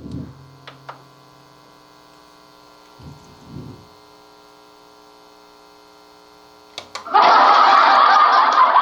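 Steady electrical hum from a karaoke mixer and effects unit, with a few faint clicks. About seven seconds in, a loud, dense preset sound effect from the unit comes in and lasts about two seconds.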